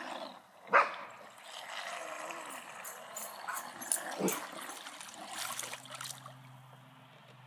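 Water splashing and gurgling as a radio-controlled model Cylon Raider moves through a swimming pool, with a couple of sharp knocks. A low steady hum starts about five and a half seconds in.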